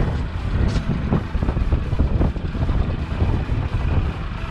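Wind buffeting the camera's microphone on an open boat offshore: a steady, uneven low rumble.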